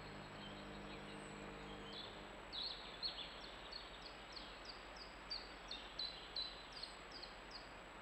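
A small songbird singing a long run of more than a dozen short, falling notes, about three a second, starting about two and a half seconds in.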